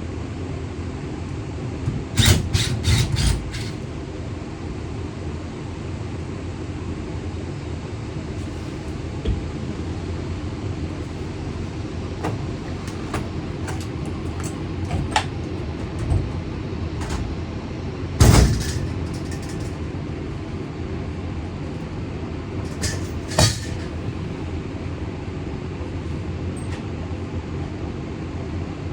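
Scattered metal clicks and knocks from hand work on a school bus's interior hardware: a quick run of clicks about two seconds in, a loud knock past the middle, and another near the end, over a steady low rumble.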